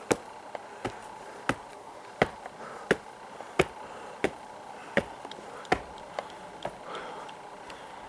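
Footsteps of shoes on concrete steps and a stone path: sharp taps at a walking pace of about one and a half a second, thinning out near the end.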